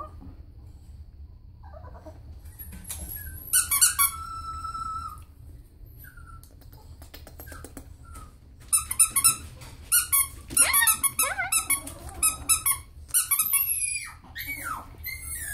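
Squeaky plush toy squeaking, with a long drawn-out squeak a few seconds in, then rapid runs of short squeaks through the second half.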